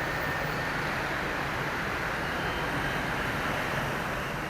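Steady city street traffic noise: a continuous hum of passing vehicles, with no single event standing out.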